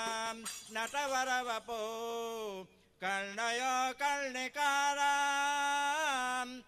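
A solo male voice singing a devotional chant, holding long notes that glide up and down, with brief breaks about three seconds in and again a little later.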